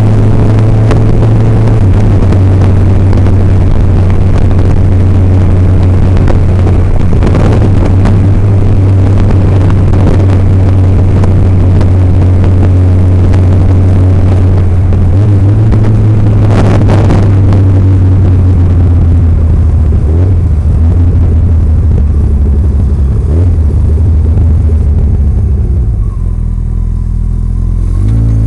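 Motorcycle engine running steadily at road speed, with wind rushing over the microphone. Near the end it eases off: the engine note drops lower and the wind noise fades.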